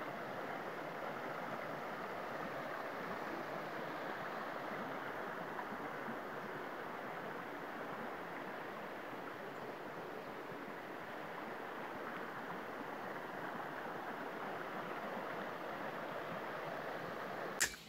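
Shallow rocky creek with muddy water running over and between stones, a steady rushing flow that cuts off abruptly near the end.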